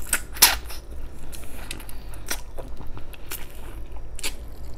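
Close-up eating sounds: wet lip smacks and finger-sucking as braised-pork-rib sauce is sucked off the fingers, then chewing on a rib, a handful of sharp smacks with the loudest about half a second in.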